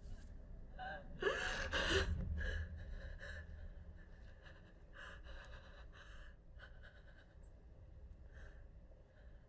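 A young woman sobbing and gasping: one loud, quavering crying gasp about a second in, then a run of short, shaky breathy sobs that grow fainter.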